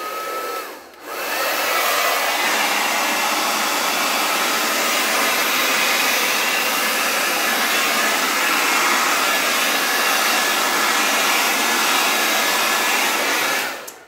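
Handheld hair dryer running steadily, blowing wet acrylic paint across a canvas. It comes on about a second in and stops just before the end.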